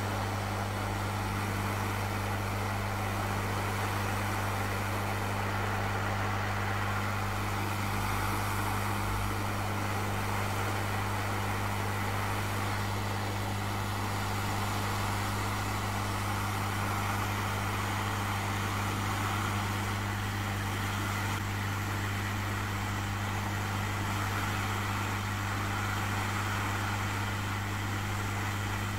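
Hot air rework station blowing steadily: a low hum under an even rush of air, as the hot air reflows the solder under a BGA chip.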